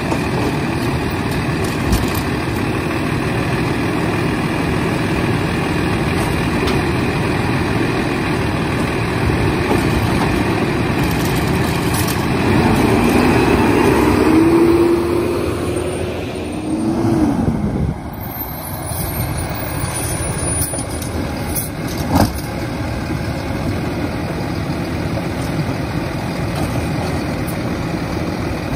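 Diesel engine of a Kenworth garbage truck with a Curbtender automated side-loader body, running steadily. It revs up for a few seconds about halfway through. A single sharp knock comes a few seconds later.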